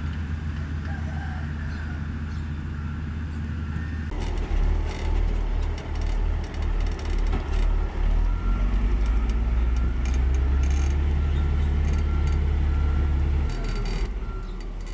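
Komatsu GD555 motor grader's diesel engine working under load, a deep steady drone that gets louder and surges about four seconds in, then eases near the end. A reversing alarm beeps faintly in the second half.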